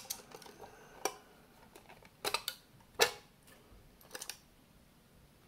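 Scattered small clicks and taps as hands handle and shift the parts and metal case of a partly dismantled aircraft LCD display unit. There are about half a dozen sharp clicks over a few seconds, the strongest about three seconds in.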